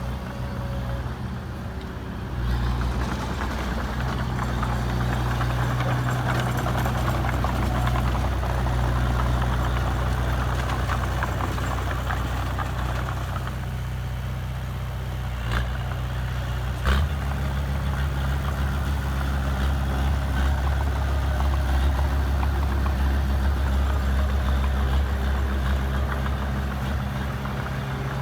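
Heavy diesel engine of earthmoving machinery running throughout. It picks up about two seconds in. Two sharp metallic knocks come near the middle, and the engine then runs louder and deeper.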